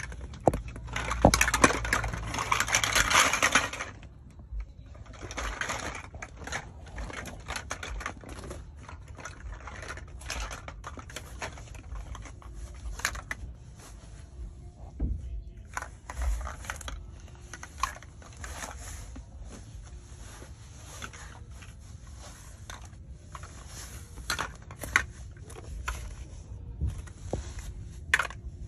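Chunky plastic toddler building blocks pouring out of a bag onto a play mat in a loud clattering rush for the first few seconds. Then scattered clicks and knocks as the blocks are picked up, dropped and pressed together.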